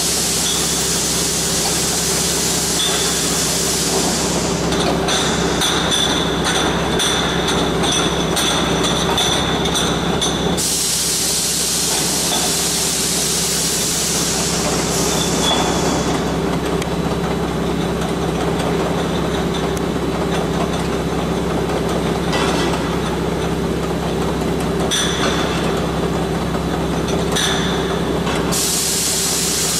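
Isobaric beer bottle filling and capping machine running: a steady motor hum, with rapid regular clicking and occasional clinks of glass bottles moving through the star wheels and conveyor. Long stretches of loud hissing from the machine come and go, at the start, again in the middle, and near the end.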